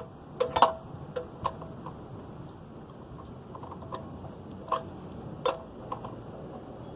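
Sharp, irregular metallic clicks of a wrench working at the oil pan drain plug, several close together in the first second and a half, then a few spaced out later.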